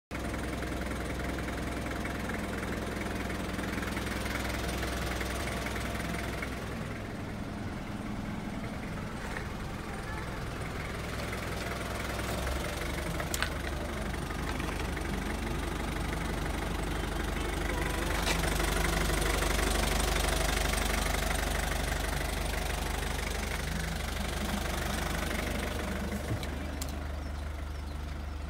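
Isuzu Elf's 4JG2 diesel engine idling steadily, with a couple of brief clicks along the way.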